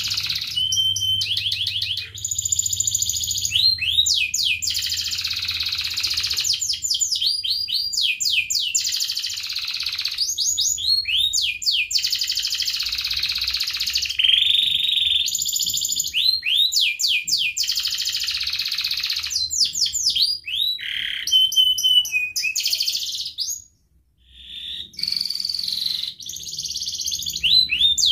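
Domestic canary singing a long, near-continuous song of rolling trills and fast runs of sweeping notes, pausing briefly once about four seconds before the end.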